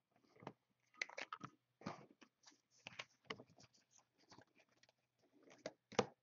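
Trading cards being flipped through and slid against each other in the hands: faint, scattered clicks and rustles, with one sharper click near the end.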